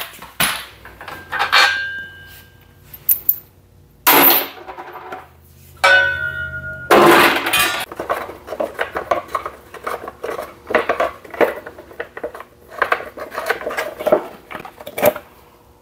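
Clinking and clattering of metal tools and hard plastic parts being handled while the air cleaner cover is worked off a Kohler Courage engine. A few separate knocks come first, then a run of quick, irregular clicks.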